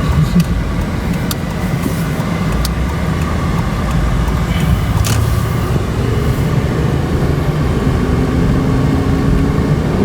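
2008 Hyundai Santa Fe heard from inside the cabin while being driven: its V6 engine running smoothly under load over steady road and tyre rumble, with no misfire now that the coil packs have been replaced.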